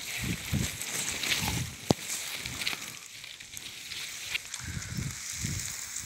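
Strawberry leaves and stems rustling and scraping against a handheld camera and its microphone as it pushes in among the plants. The noise is scratchy and crackling, with soft handling thuds and one sharp click about two seconds in.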